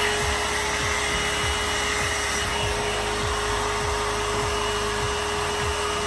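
One-step hot-air brush (hair dryer and styler) running: a steady rush of blown air with a constant motor whine, coming in suddenly at the start.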